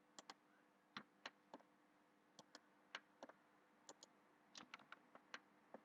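Computer mouse clicking, about a dozen and a half short, quiet clicks at an irregular pace, some in quick pairs, over a faint steady hum.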